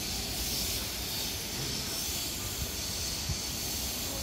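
Steady hiss and low rumble from an Odakyu 1000 series electric commuter train standing at the platform.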